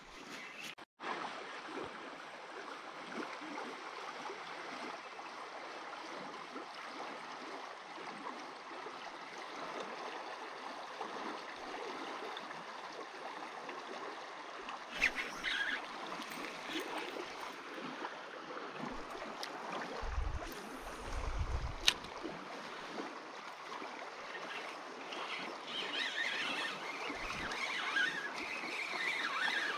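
Steady rush of a fast, shallow river running over stones, with a few sharp clicks and brief low bumps midway.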